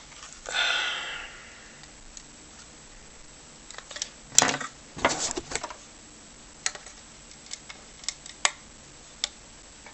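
Wire cutters forcing apart a plastic speaker casing. There is a scraping creak about half a second in, a sharp snap of plastic a little after four seconds with a flurry of clicks, then scattered small clicks as the pieces are handled.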